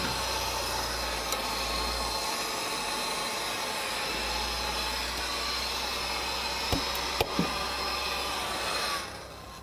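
Steady hissing workshop noise, with a few light metal clicks about seven seconds in as a liquid-nitrogen-chilled steel bushing is set by hand into the balance shaft bore of a cast-iron engine block. The hiss drops away near the end.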